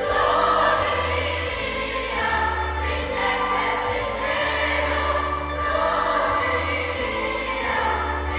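Church choir singing a Christmas carol in held, sustained notes over instrumental accompaniment with a bass line that moves about once a second.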